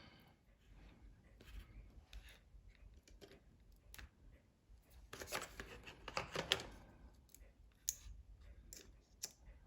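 Faint scraping and clicking of small repair tools working at the battery inside an iPhone 5S, with a louder stretch of scratchy scraping about five to seven seconds in and a few sharp clicks near the end.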